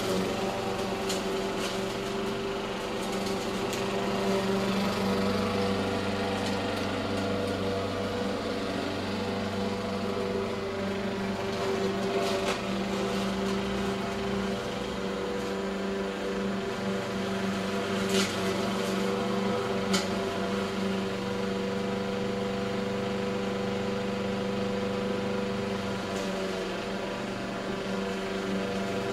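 Walk-behind gas lawn mower engine running steadily. A little past halfway there are two short sharp clicks about two seconds apart.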